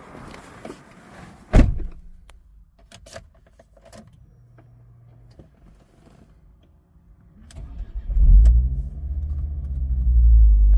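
A loud thump about one and a half seconds in, then a few clicks. Near three quarters of the way through, the Ford Focus ST's turbocharged 2.5-litre five-cylinder starts with a loud burst and settles into a running idle, its revs rising and falling.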